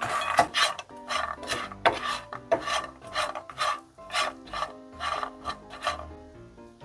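Rasping, scraping strokes, about two a second, from crisp toasted bread cubes being stirred, over light background music.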